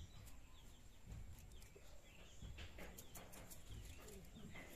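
Quiet outdoor ambience with faint bird chirps and a low steady background rumble. There are a few soft clicks near the middle.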